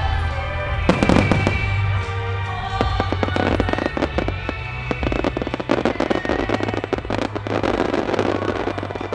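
Aerial fireworks bursting over music: a heavy burst about a second in, then from about three seconds a dense, rapid crackling of many stars popping. The crackling stops just before the end.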